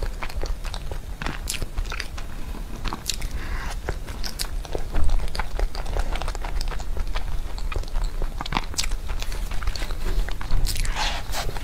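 Close-miked chewing of a soft crepe roll: a person's mouth chewing and smacking, a steady run of many small clicks, through a lapel mic.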